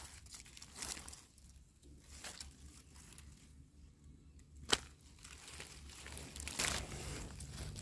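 Small knife cutting and trimming wild mushroom stems by hand over dry leaf litter, with scattered crackling and scraping of dry leaves and handling. A sharp click comes a little past halfway, and a louder scrape near the end.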